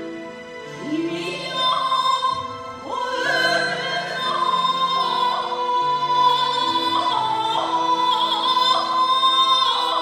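Shigin: a woman chanting poetry into a microphone in long, held, wavering notes with small ornaments, over steady instrumental accompaniment.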